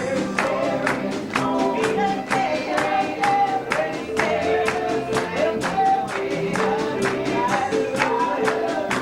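Live gospel song: a voice singing over piano, bass and strummed guitar with a steady beat.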